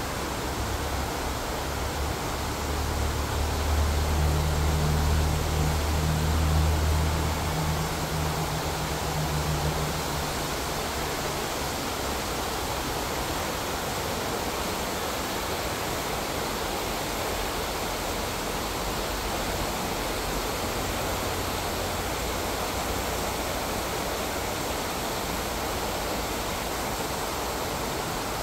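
Steady rushing of a stream flowing over rocks. A low rumbling hum swells and fades during the first third.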